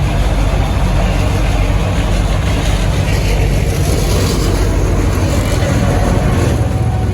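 An engine running steadily and loudly, low-pitched, with extra hissing noise over it for a few seconds in the middle.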